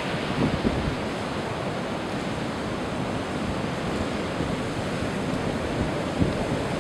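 Heavy storm surf breaking and washing up the beach as a steady rush, with wind gusting on the microphone a couple of times.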